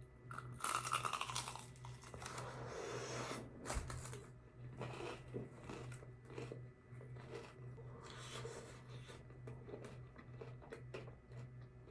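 Biting into and chewing a crispy fried chicken wing, with irregular crunches and tearing, loudest in the first two seconds or so. A low steady hum runs underneath.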